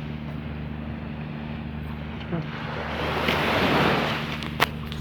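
Sea waves washing in, one swell rising and falling about three to four seconds in, over a steady low hum. A single sharp click comes near the end.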